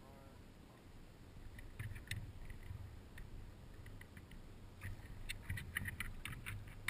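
Light clicks and scrapes of a dog's claws on a boat's deck as it shifts its footing, coming in scattered bunches and busiest in the second half, over a faint low hum.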